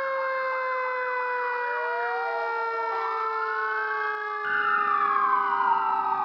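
Several emergency-vehicle sirens sounding at once, their pitches gliding slowly downward; a louder siren comes in about four and a half seconds in and falls in pitch.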